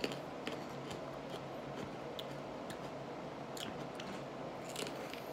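Faint, irregular crisp clicks of a whole raw California red chile pepper being bitten and chewed, over a steady low hum.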